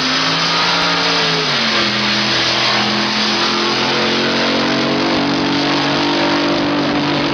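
Supercharged drag boat engine running hard at speed, its pitch dipping about a second and a half in and then slowly climbing.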